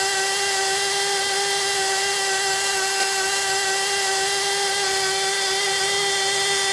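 Miniature two-stroke nitro model engine running at a steady high speed, a constant high-pitched buzz, while spinning a small fan and a DC motor used as a generator.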